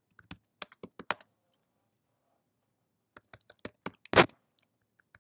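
Computer keyboard keys being typed: two runs of separate keystroke clicks with a pause of about a second and a half between them, one stroke louder than the rest just after four seconds in.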